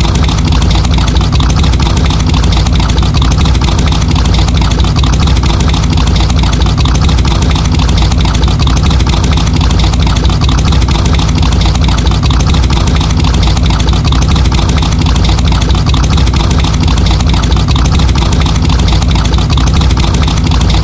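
Muscle car engine idling steadily with a deep, even rumble.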